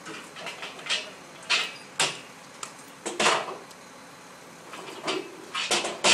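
Scattered knocks and clanks at the back of a military cargo truck as a soldier works at its tailgate, several single hits a second or so apart and the loudest pair near the end.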